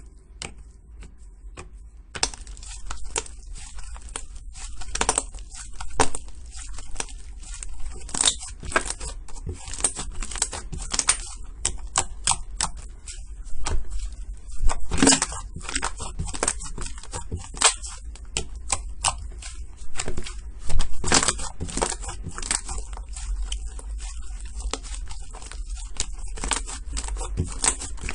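Slime being squeezed and pressed by hand, making a dense run of crackling pops and clicks that starts about two seconds in after a few scattered clicks.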